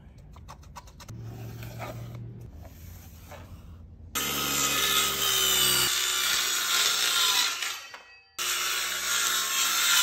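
Craftsman cordless circular saw cutting through a plywood sheet, loud from about four seconds in; the sound breaks off abruptly for a moment near the end and resumes.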